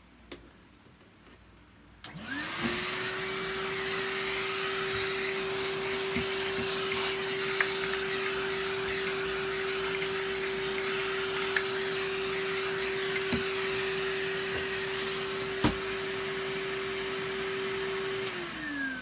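A vacuum cleaner is switched on about two seconds in. Its motor spins up to a steady whine over a loud rushing of air, with a few sharp clicks along the way. Near the end it is switched off and the whine winds down in pitch.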